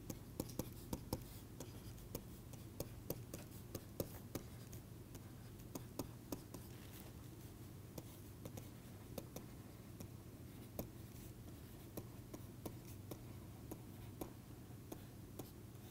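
Stylus writing by hand on a tablet: faint, irregular taps and scratches as letters are formed, over a low steady hum.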